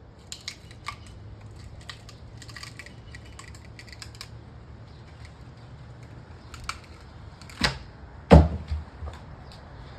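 Rotten, ant-infested dead tree wood being broken apart: a run of small cracks and snaps over the first few seconds, then two heavy thumps a little past halfway, the second the loudest.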